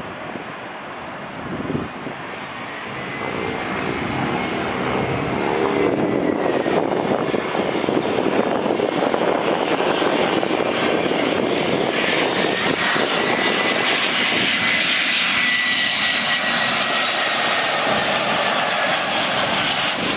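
Airbus A319 airliner on final approach, its twin jet engines growing louder as it comes in to land: a steady rush with a high engine whine over it in the second half.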